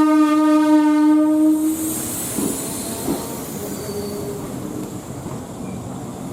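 A train horn sounds one steady note for about a second and a half, followed by the steady running noise of the train.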